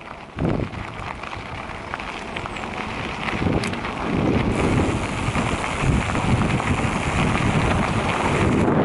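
Mountain bike rolling fast down a gravel trail: tyres crunching and rattling over the gravel, with wind rushing over a helmet-mounted camera's microphone. There is a thump about half a second in, and the sound grows louder from about halfway through.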